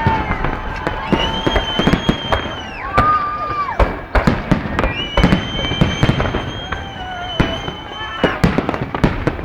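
Fireworks salute going off in many rapid bangs and crackles, with long whistling tones sounding over them several times.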